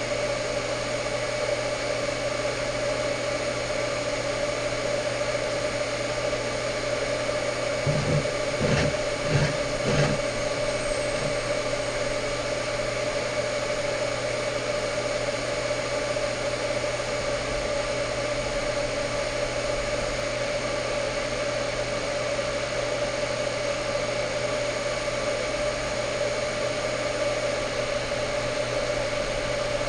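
Electric welding arc buzzing steadily while flanges are welded onto a steel exhaust resonator, with a few brief louder bumps about eight to ten seconds in.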